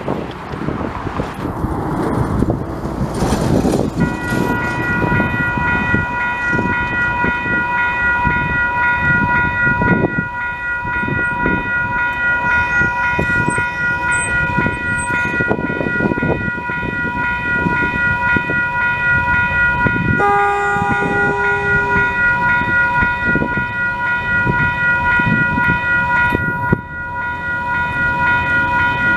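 DSG diesel shunting locomotive running as it creeps through the yard, with a steady high-pitched whine from a few seconds in. About two-thirds of the way through comes one short horn toot lasting about two seconds.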